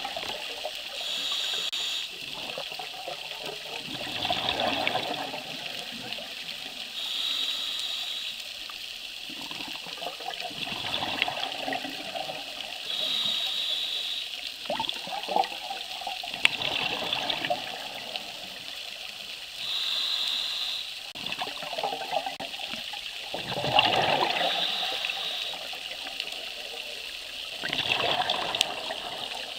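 Scuba diver breathing through a regulator underwater: a short hiss of inhalation, then a bubbly burst of exhaled air, in slow breaths about one every six seconds.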